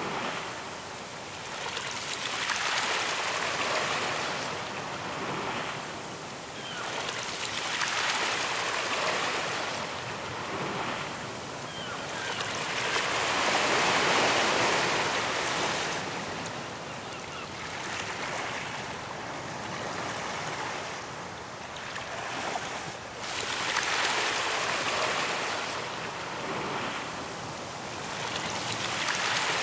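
Ocean waves breaking on a beach, a continuous wash of surf that swells and recedes every few seconds, the loudest wave about halfway through.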